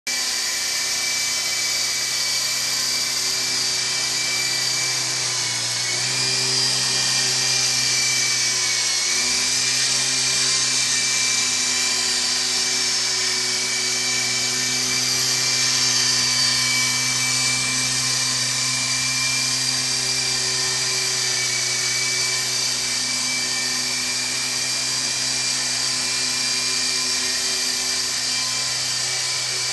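Micro electric RC helicopter (5#5 Nano Lama) in flight: a steady high whine of its motors and rotors, dipping briefly in pitch about nine seconds in.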